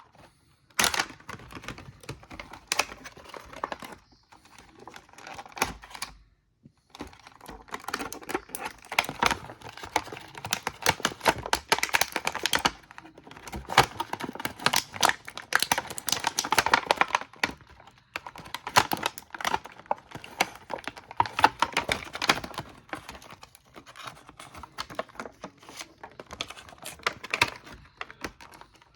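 Rapid plastic clicking and rattling from handling a Leonardo action figure and its packaging, in irregular flurries with a brief pause about six seconds in.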